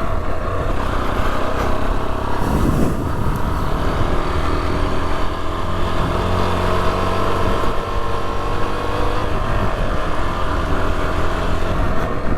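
Rieju Adventura 125's single-cylinder four-stroke engine running under a rider on a rough green lane, its pitch rising and falling with the throttle through the middle of the stretch. A brief rush of noise about two and a half seconds in.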